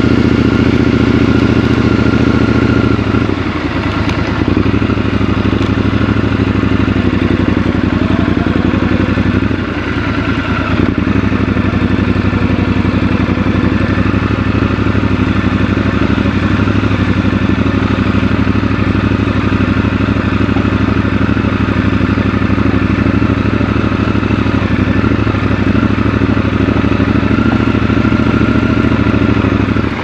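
Triumph Scrambler 1200 XC's 1200 cc parallel-twin engine running steadily under way, briefly easing off a little before ten seconds in.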